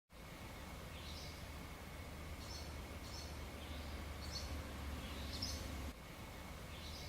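Outdoor ambience with a small bird giving short chirps about every second or so, over a faint steady high tone and a low rumble that drops away about six seconds in.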